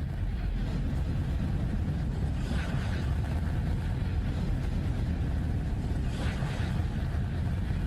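Space audio file presented as the sound of Neptune's moon Triton: a steady low rumbling whoosh like wind, with brief hissing swells about two and a half and six seconds in, like geysers or water hoses spraying through a jet nozzle.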